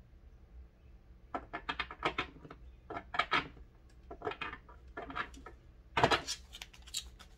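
Tarot cards being shuffled and handled by hand: bursts of quick clicks and taps about once a second, the loudest about six seconds in.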